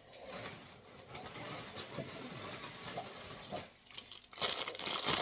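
Plastic packaging of a parcel of dog toys rustling and crinkling as it is handled, faint and irregular at first, then louder about four and a half seconds in.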